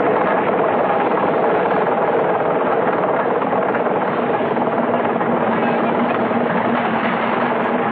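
Small inboard engine of a lobster boat running steadily with a fast, even rattle.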